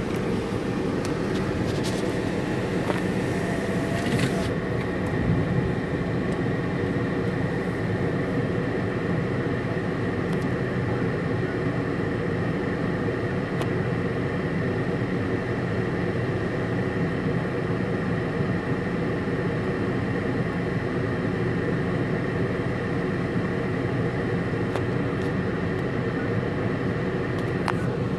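Steady hum of a PDQ ProTouch Tandem car wash running, its pumps and motors driving the spray and spinning brushes, muffled through the windshield of a waiting car. A hiss of water spray sits over it for the first few seconds, then stops.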